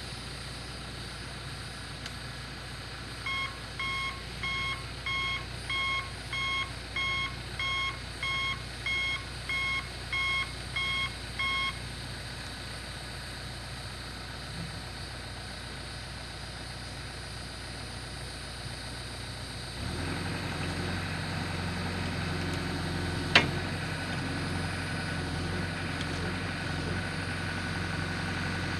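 Backhoe engine running with its reversing alarm beeping, about two beeps a second for around eight seconds. About twenty seconds in the engine gets louder and heavier, and a single sharp click comes a few seconds later.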